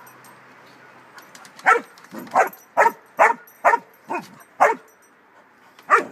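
A dog barking at a toy cat: a run of short, sharp barks, about two a second, starting a little under two seconds in, then a brief pause and one more bark near the end.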